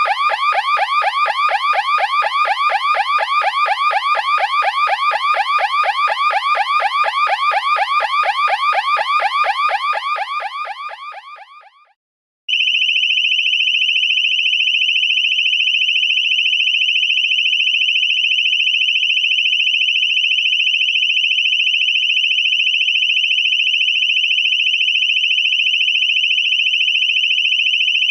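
Electronic siren yelping: fast rising sweeps, several a second, fading out about ten to twelve seconds in. After a short silence, a steady, high-pitched electronic alarm tone sounds without a break.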